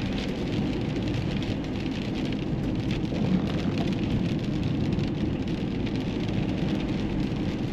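Steady road noise from a car being driven: tyres rolling on the road surface with the engine running underneath.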